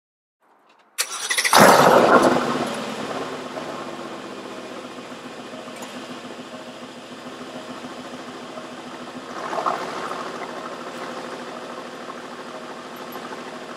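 Cold start of a 2018 Aston Martin Vantage's AMG 4.0-litre twin-turbo V8. The starter cranks briefly, the engine catches about a second in with a loud flare of revs, then settles to a steady fast cold idle. The engine note swells briefly once more about nine and a half seconds in.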